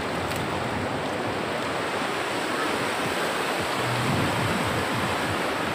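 River rapids rushing over rocks: a steady roar of fast-flowing water.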